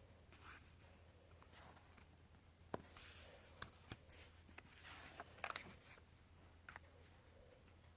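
Coloring-book paper pages being handled and turned: faint rustling with a few sharp ticks, busiest in the middle, over a steady low hum.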